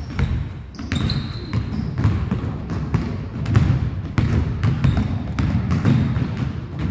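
Basketballs bouncing on a hardwood gym floor as players dribble in, the knocks coming several times a second at an uneven pace.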